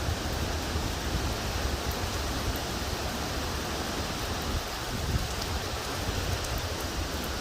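Hurricane wind and rain making a steady rushing noise, with a low rumble of wind buffeting the microphone.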